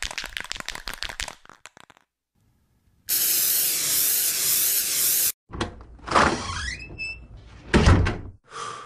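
Intro sound effects: quick rattling clicks that die away within the first second or two, then a steady hiss lasting about two seconds, then a jumble of thumps with a rising sweep.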